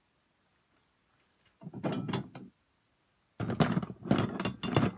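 Metal workbench parts and hardware tossed into a container, clanking. A short clatter comes about one and a half seconds in, then a longer run of clanks near the end.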